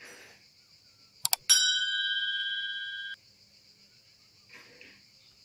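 Like-and-subscribe button sound effect: a quick double mouse click about a second in, then a notification bell dings once and rings for about a second and a half before cutting off abruptly. A faint steady high-pitched hiss runs underneath.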